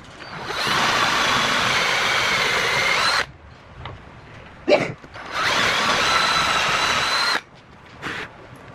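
Electric hand drill running in two bursts, the first about three seconds and the second about two, with a steady whine. A short sharp knock falls between the bursts.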